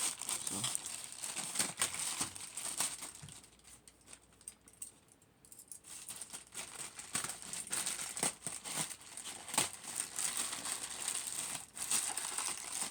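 Packaging being worked open by hand: crinkling and rustling with scattered sharp clicks and some tearing, quieter for a couple of seconds in the middle.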